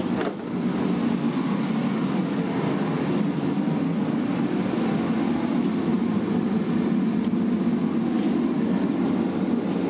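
A steady low rumble of background noise, with a brief knock right at the start.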